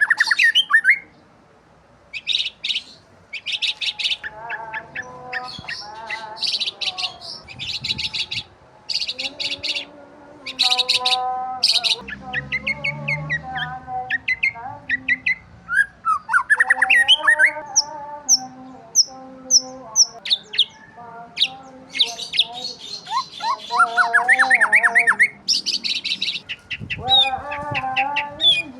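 Several small birds chirping and twittering, with rapid trills and quick rising chirps overlapping one another, and a run of short, high repeated notes about two-thirds of the way through.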